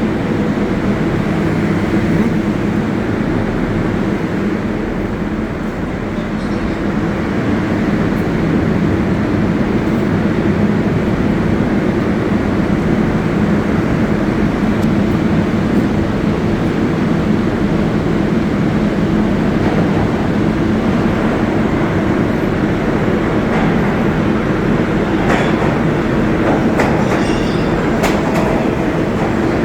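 New York City Subway 7 train running on the IRT Flushing Line: a steady, loud rumble of wheels on rails, with a few clicks near the end.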